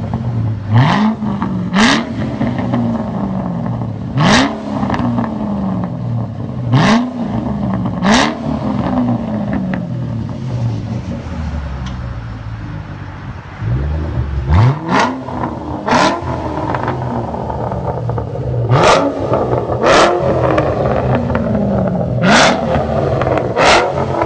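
2013 Shelby GT500's supercharged 5.8-litre V8 through custom Tunnel Ram mufflers and quad stainless tips. It idles and is blipped about ten times, often in quick pairs. Each blip rises sharply in pitch with a sharp crack, with a short stretch of plain idle partway through.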